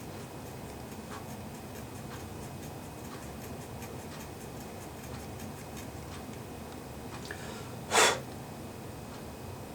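Quartz wall clock movement ticking faintly. About eight seconds in there is a single short, loud rustle or scrape.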